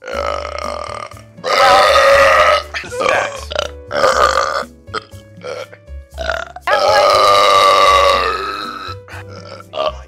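Loud, drawn-out human burps: one starting about one and a half seconds in and lasting about a second, a longer one starting near seven seconds in, with a few short sounds between them. Background music plays underneath.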